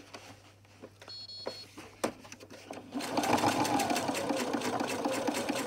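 Domestic electric sewing machine running for the last few seconds, its needle stitching rapidly through thick cotton webbing and bag fabric, then stopping. Before it starts, only a few light clicks as the fabric is positioned under the presser foot.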